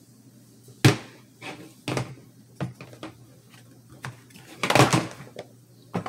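Handling noises on a tabletop as a revolver is set down and a soft case is handled: a sharp knock about a second in, a few lighter taps and clicks, then a short rustling clatter near the end.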